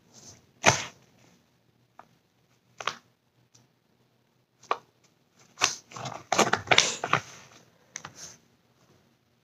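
Plastic blind-toy packaging being handled: scattered crinkles and clicks, with a denser run of crinkling about six to seven seconds in.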